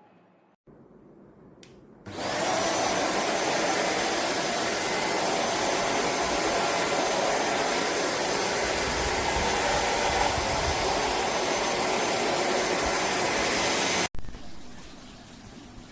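Khind bagless vacuum cleaner running: a loud, steady rush of air with a faint high whine, starting about two seconds in. Near the end it cuts off abruptly to a quieter steady noise.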